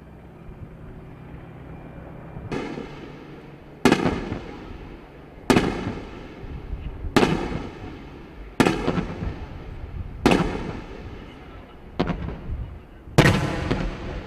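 A string of about eight sharp explosive bangs, roughly one every second and a half, each with a short echoing tail: explosive rounds detonating on a target range. Before the first bang, the steady hum of an AH-64 Apache helicopter's engines and rotor.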